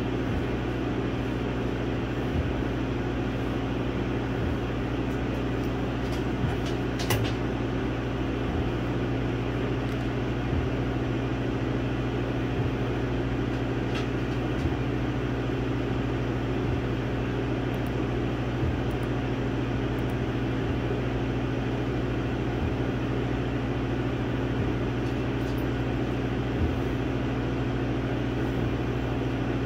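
Laser engraver running: a steady machine hum from its fans and motors, with a faint low knock about every two seconds as the head sweeps across the board.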